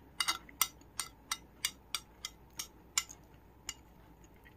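Metal spoon clinking against a bowl while scooping food: a quick run of light clicks, about three a second, growing fainter and sparser toward the end.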